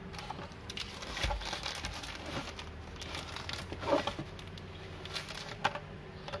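Plastic blister pack and cardboard backing card of a boxed die-cast toy car crinkling and clicking as it is handled in the fingers. The rustles come in short, scattered bursts, with a louder one about four seconds in.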